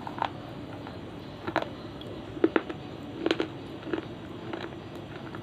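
Slate pencil pieces being bitten and crunched between the teeth: about six sharp, irregular crunches, the loudest near the middle.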